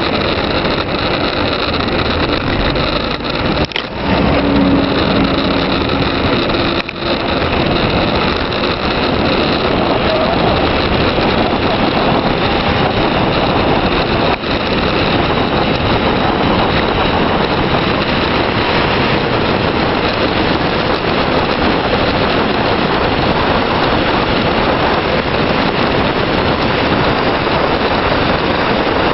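Steady, loud rush of wind over the microphone at speed on a downhill ride, mixed with tyre noise on the asphalt.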